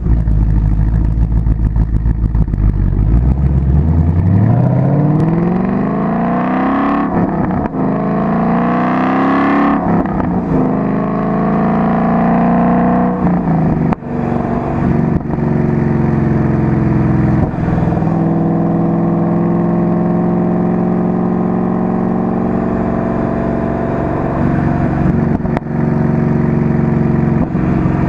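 Car engine heard from a microphone mounted outside the car: idling, then accelerating from a standstill with its pitch rising, dropping back twice at gear changes, then settling to a steady cruise.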